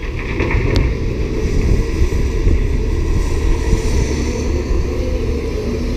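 Strong wind buffeting the microphone over the steady running of heavy diesel earthmoving machines: a tracked excavator swinging its load beside an articulated dump truck.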